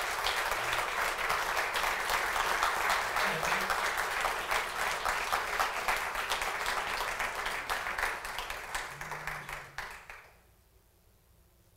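Audience applauding steadily; the clapping tapers off and stops about ten seconds in.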